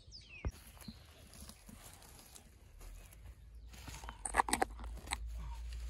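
Kitchen knife cutting through the stem of a head of leaf lettuce at ground level: a few sharp crunches about four seconds in, and one more shortly after.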